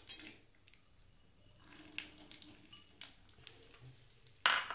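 Chopped nuts frying in a little hot ghee in a small tempering pan: a faint sizzle with scattered small crackles, and one brief louder noise near the end.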